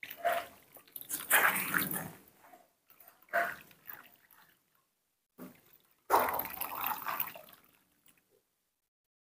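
Warm water pouring from a stainless steel kettle into a plastic basin, splashing and gurgling in several bursts.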